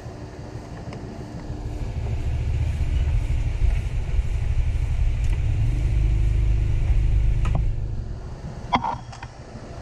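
Low rumble of a passing road vehicle, swelling over a few seconds and fading away about eight seconds in. A couple of small tool clicks come near the end.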